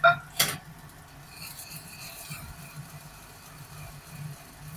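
Black sesame seeds being ground in a glazed Japanese suribachi mortar with a wooden surikogi pestle: a steady gritty rubbing, after two sharp knocks at the start. The seeds are by now mostly crushed.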